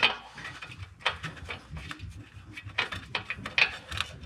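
Hand-handling noise in a truck's engine bay: scattered small clicks, knocks and rubbing as an oxygen sensor and its wiring are worked into place by hand.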